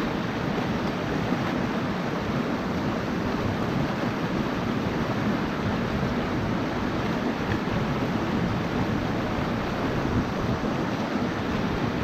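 Mountain stream water rushing over rocks, a steady, even rush.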